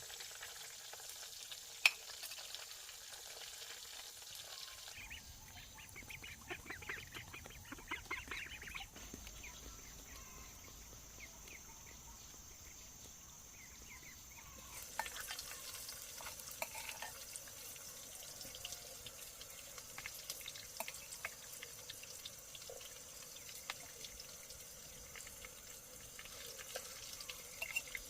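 Food frying in a pan of hot oil: a steady sizzle with scattered crackles and pops, and a sharp click about two seconds in.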